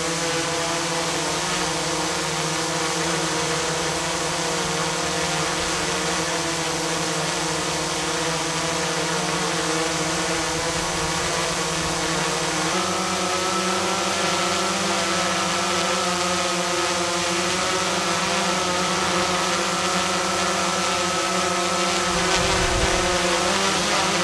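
Autel EVO II quadcopter hovering at close range, its four propellers giving a steady multi-tone whine that rises and falls slightly as the drone holds position in the wind. For the first half it flies on the new low-noise propellers; about halfway through it switches to the old stock propellers, a little louder and with a higher-pitched tone. A brief low rumble comes near the end.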